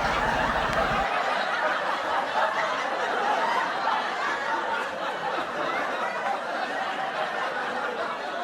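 People snickering and chuckling, mixed with indistinct talk. A low rumble cuts off about a second in.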